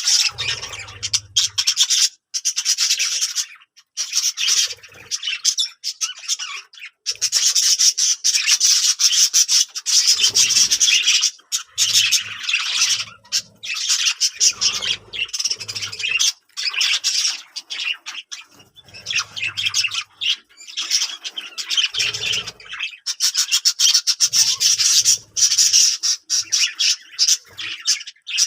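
Budgerigars chattering and warbling: a dense run of fast chirps and squawks, broken by a few short pauses.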